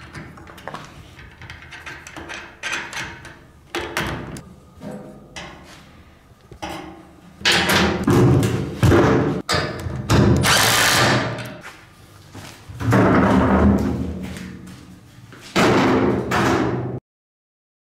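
Wheelbarrow being assembled and handled: light clicks and knocks of the parts and tools, then four loud stretches of knocking and scraping as the wheelbarrow is moved and tipped, each carrying a low ringing from the tray. The sound cuts off sharply near the end.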